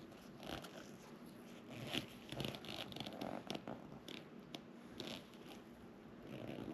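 Faint scratchy rustling and a few small clicks of hands working leather upholstery, busiest a couple of seconds in.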